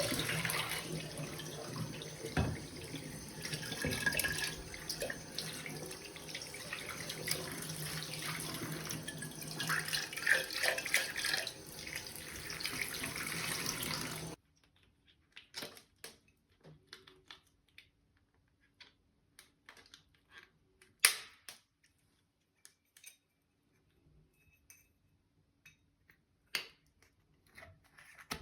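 Water running from a tap into a sink, uneven as it splashes, cutting off suddenly about halfway through. Scattered light clicks and knocks follow.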